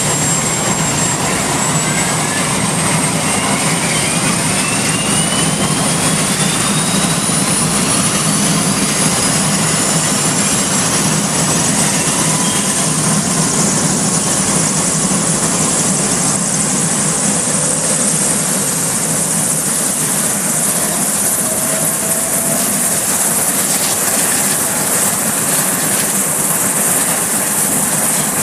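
Sikorsky S-61 helicopter's twin turboshaft engines starting up for warm-up: a loud, steady turbine rush with high whines rising in pitch over the first fifteen seconds or so, then holding steady as the main rotor begins to turn.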